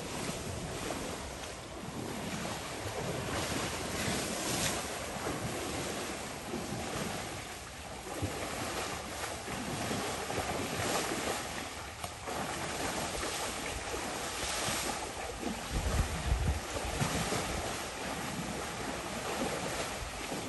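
Wind rushing over the microphone, swelling and easing, with a strong low buffet about sixteen seconds in.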